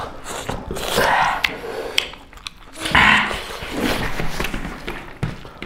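Close-miked mouth sounds of people eating spicy chicken curry by hand: chewing and smacking with several loud breathy huffs, the loudest about three seconds in.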